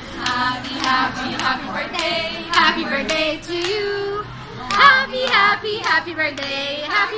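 Two teenage girls singing together while clapping along in a steady beat, about two claps a second.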